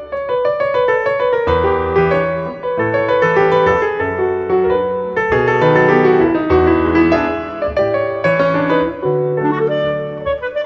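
Background music led by piano, with a bass line and several notes sounding together.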